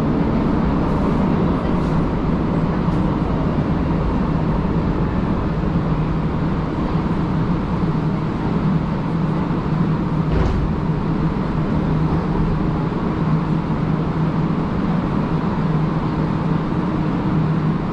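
Steady hum and rumble inside a Montreal Metro AZUR rubber-tyred train car, with one brief clunk about ten seconds in as the car's doors slide open at a station.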